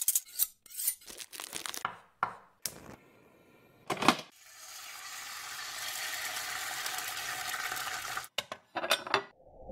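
Sound effects of metal kitchen utensils for an animated logo: a quick run of sharp metallic clinks and clatters, then a steady hiss lasting about four seconds, then a few more clinks near the end.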